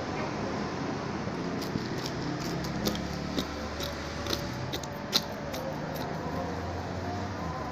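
A run of light, sharp clicks and ticks, like small tools or metal being handled, over a steady low hum; the sharpest click comes about five seconds in.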